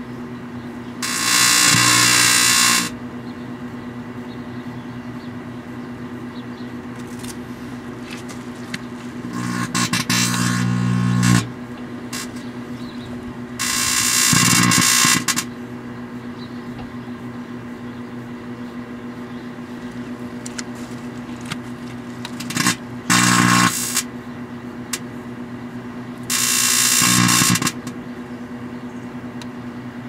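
Danby microwave oven running with a steady hum while a metal pan scrubber inside arcs, making several loud buzzing-crackling bursts of a second or two each.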